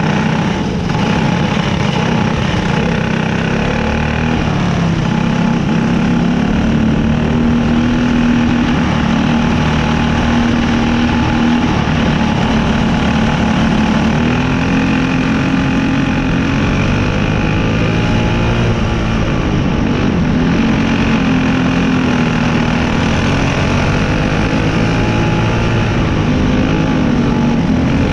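Onboard sound of a small dirt-track racing car's engine running at low revs while rolling slowly. The pitch holds steady and rises and dips gently a few times.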